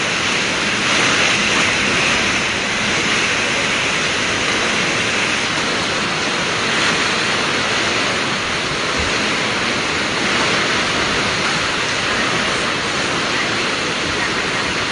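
Typhoon wind and heavy rain: a loud, steady rushing hiss that swells slightly with the gusts.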